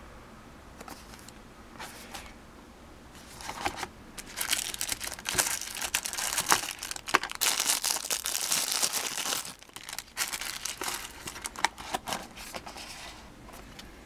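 Clear plastic wrapping crinkling and crackling as it is pulled off a folding knife. It starts a few seconds in, is loudest through the middle, and dies away near the end.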